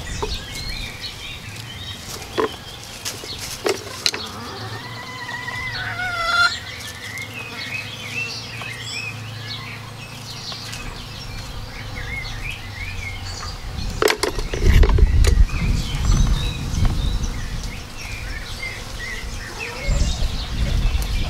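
Chickens and wild birds calling and chirping in the background, with one short pitched call about six seconds in. There are a few sharp knocks, and bursts of low rumble about two-thirds through and again near the end.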